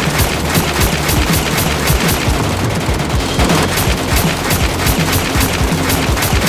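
Automatic gunfire, a long rapid run of evenly spaced shots at several a second without a break.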